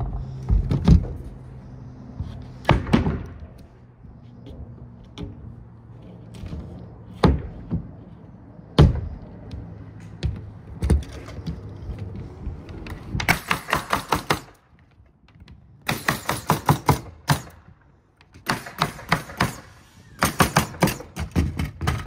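Hammer blows on wood: scattered single knocks at first, then four quick bursts of rapid strikes in the second half, like nails being driven into deck framing. A low steady hum runs under the first half.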